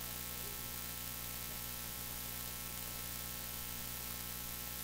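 Steady electrical mains hum under a constant hiss: the background noise of the sound system or recording in a pause between words.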